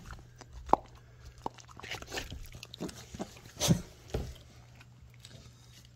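Shiba Inu sniffing and snuffling at close range, a series of short quick sniffs, the loudest about three and a half seconds in.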